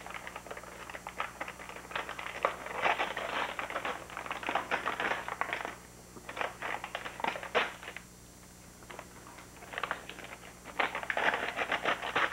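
A child tearing and crinkling gift-wrapping paper off a present, in bursts of rustling and ripping, with a quieter spell of a couple of seconds past the middle.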